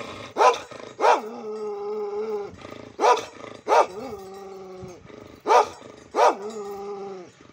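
A large black dog barking in pairs, three times over. Each bark is drawn out into a long, steady cry before the next.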